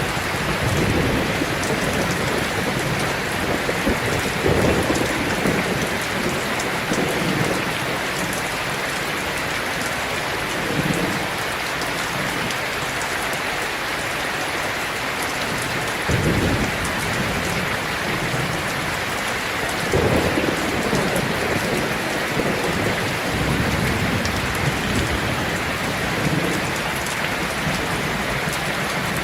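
Heavy rain drumming steadily on a sheet-metal roof, with several low rumbles of thunder rolling underneath, the clearest about sixteen and twenty seconds in.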